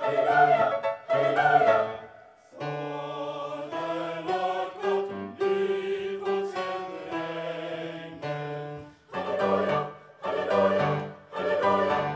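A choir of children and teenagers singing. Short strong phrases with brief breaks open and close it, with a softer passage of held notes in the middle.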